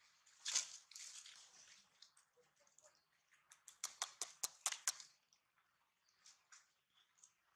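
Dry fallen leaves rustling and crackling as a monkey moves over them: a short rustle about half a second in, then a quick run of sharp crackles in the middle. Faint throughout.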